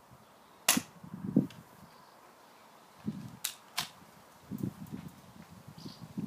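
BB pistol shots: one sharp crack about a second in, then two fainter clicks a third of a second apart around the middle, with softer low thumps in between.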